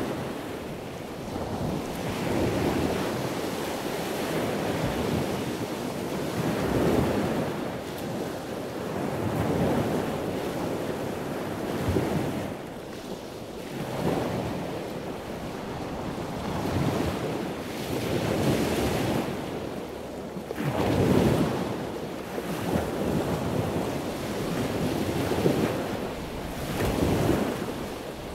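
Sea water rushing and splashing alongside a sailboat under way, heard close at the waterline, with wind buffeting the microphone; the wash swells and eases every couple of seconds.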